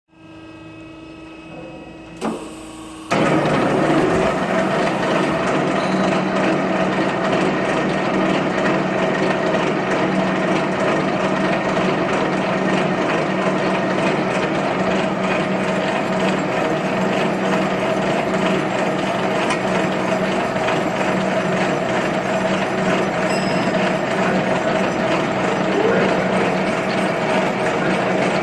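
Conveyor roller shaft end-milling machine: a quiet hum and a single knock, then about three seconds in it starts running at full level, milling the shaft ends with a loud, steady, dense cutting noise over a constant hum.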